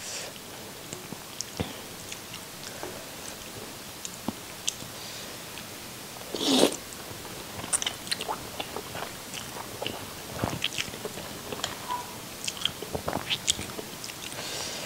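Close-up eating sounds of wide rice noodles in soup: chewing with many short, wet smacking clicks, and one louder slurp about six and a half seconds in.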